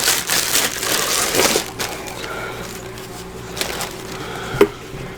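Packaging being handled and opened: noisy rustling and crinkling, heaviest for the first couple of seconds and then lighter, with a sharp click about four and a half seconds in.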